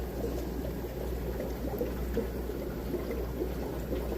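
Steady bubbling and trickling of aquarium water from fish-room filters and aeration, over a constant low hum.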